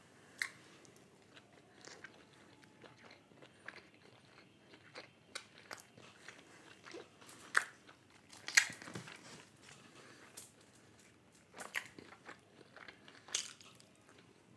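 A person biting into and chewing chicken kothey, pan-fried momos, with irregular crisp crunches. The loudest crunch comes a little after halfway.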